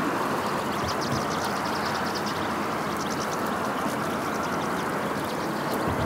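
A flock of European goldfinches twittering, with clusters of rapid, high, short calls, over a steady rushing background noise.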